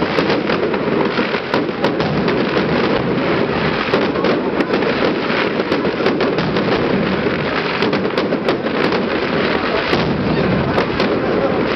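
Fireworks display: aerial shells bursting in a continuous barrage, many sharp bangs and pops overlapping over a steady rumble and crackle.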